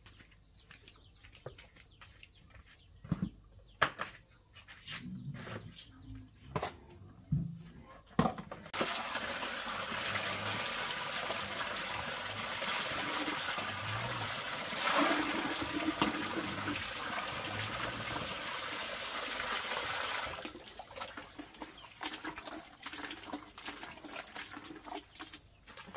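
Water running in a steady stream for about twelve seconds, starting and stopping abruptly. Scattered knocks and clinks of household handling come before and after it.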